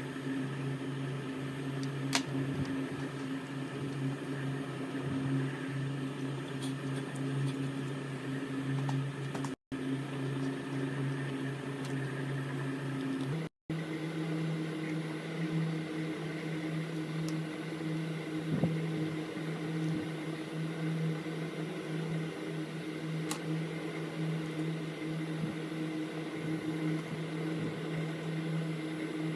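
A small electric motor or fan running with a steady hum. After a brief break in the sound about 13 seconds in, its pitch sits slightly higher. There are a few light clicks.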